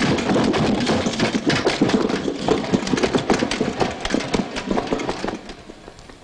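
Rapid, dense clattering and rattling of small hard objects, which fades away about five seconds in.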